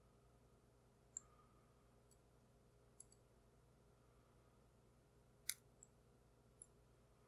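Faint, scattered clicks of a lock pick working the pin tumblers of a cheap padlock, a few seconds apart, the loudest about five and a half seconds in.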